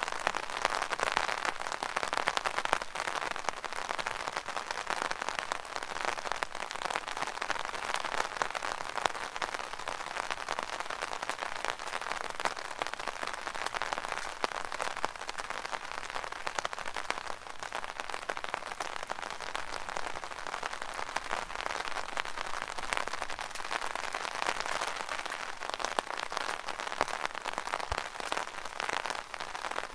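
Rain falling on an umbrella canopy: a steady, dense patter of close drops.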